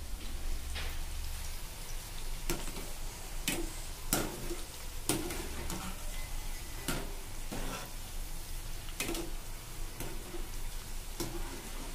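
Coated chickpeas deep-frying in hot oil in a kadhai, a steady sizzle, with repeated sharp clinks of a wire spider skimmer stirring and tapping against the pan.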